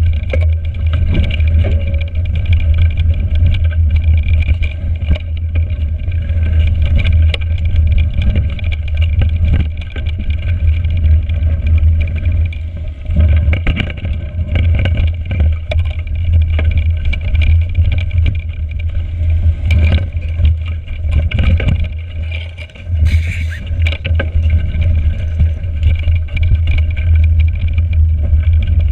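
Mountain bike ridden over a rough frozen forest trail, picked up by a handlebar-mounted GoPro: a constant heavy rumble of wind and vibration on the microphone, with frequent clattering knocks as the bike rattles over roots and bumps. About three-quarters of the way through the rumble briefly drops and a short hiss sounds.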